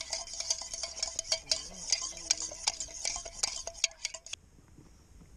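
Fork whisking a cracked egg in a bowl: a quick, irregular run of clicks of metal against the bowl, stopping about four seconds in.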